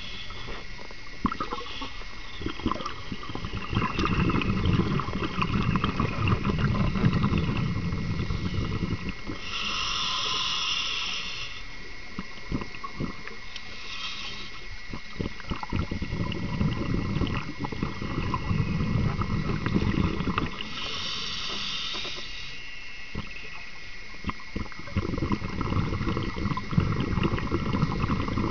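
Scuba diver breathing through a regulator underwater: short hissing inhalations alternating with long stretches of bubbling exhalation, about three breaths in all.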